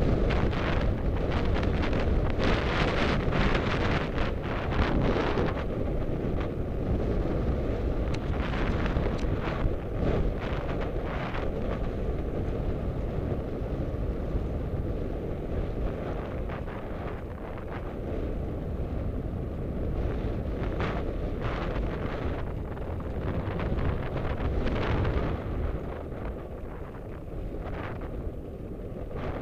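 Wind buffeting the microphone of an action camera on a moving bicycle: a steady low rumble with irregular gusts, easing a little in the second half.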